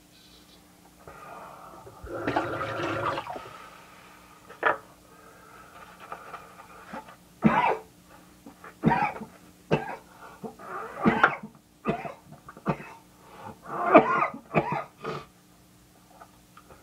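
A man coughing and clearing his throat: a longer rough cough about two seconds in, then a run of about nine short, sharp coughs.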